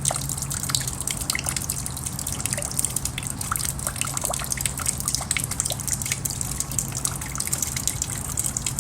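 Rainwater dripping and trickling: many small, irregular drips over a steady watery hiss, with a low steady hum underneath.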